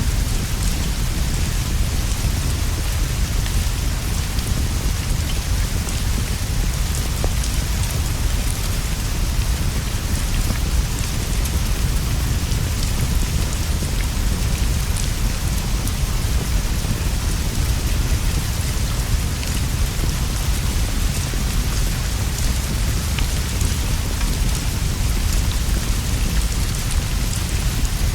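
Steady rain falling on leaves and a straw roof, an even hiss over a constant deep rumble, with scattered small faint pops.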